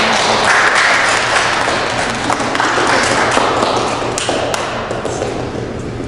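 A small group of people applauding, the clapping thinning out and easing off near the end.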